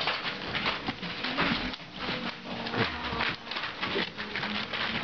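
English mastiff puppies scrabbling and padding about on a crinkly plastic tarp strewn with shredded paper: continuous rustling and crackling with quick, irregular pattering.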